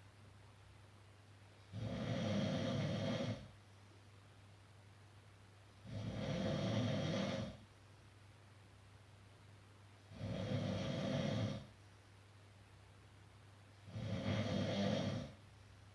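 A sleeping person snoring: four rough snores about four seconds apart, each lasting about a second and a half, with quiet breathing pauses between.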